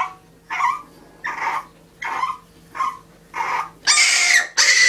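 Puppy whimpering and crying during a bath, a string of short high cries, about six or seven, the last few louder.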